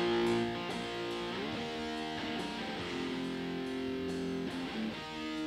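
Recorded electric guitar playing sustained chords that change about every second and a half, heard through a compressor set to a slow release, which smooths and polishes the sound.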